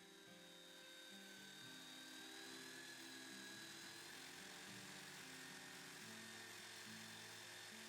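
Quiet background music of changing low notes, with a faint steady high-pitched whine over it.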